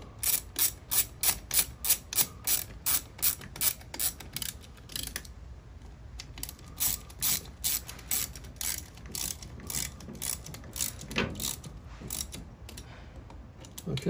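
Ratchet clicking in quick, regular back-strokes while it tightens the muffler screws, at about three clicks a second, with a short break about five seconds in before the clicking resumes.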